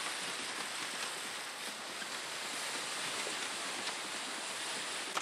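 Sea waves breaking and washing up the shore in white surf, a steady rush of water.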